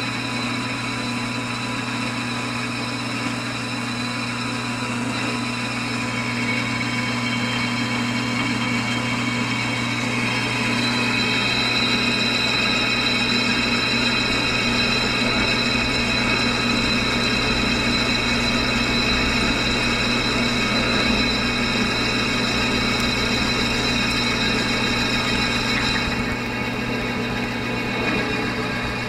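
Case IH Magnum tractor engine running steadily while pulling a disc, with a constant high whine over the engine. It gets louder about ten seconds in.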